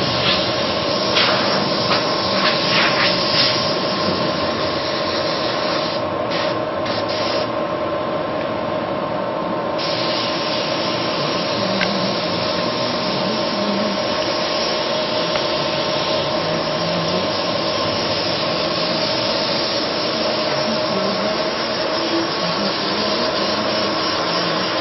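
Car door panels being hand-sanded, sandpaper rubbing on the metal and filler, over a steady hiss and hum of machinery.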